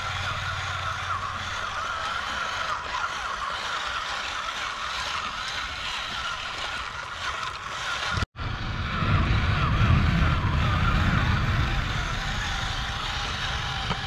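Small electric gear motors of a bamboo toy tractor and harvester whirring steadily. After a sudden cut about eight seconds in, a louder low rumble joins the whir.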